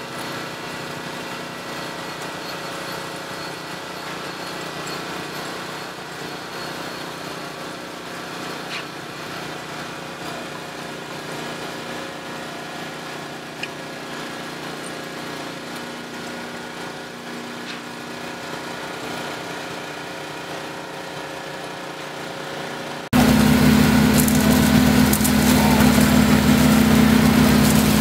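Small petrol engine of a vibrating concrete power screed running steadily as the screed is drawn across wet concrete. Near the end the sound cuts suddenly to a much louder, closer engine with a strong low hum.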